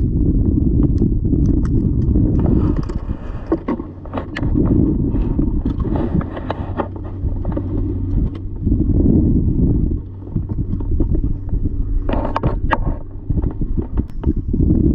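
Low, uneven rumble of wind buffeting the microphone on an open kayak, with scattered clicks and rattles of fishing pliers and rod being handled, thickest a little before the end.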